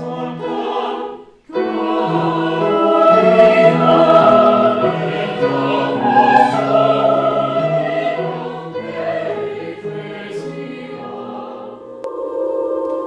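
A mixed-voice university chamber choir singing sustained chords that move in steps, with a brief break about a second and a half in. Near the end the singing gives way to a steady held tone.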